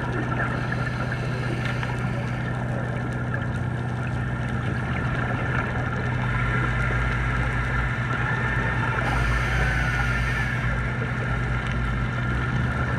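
Underwater sound: the steady hum of a boat engine carrying through the water, over a constant crackling hiss.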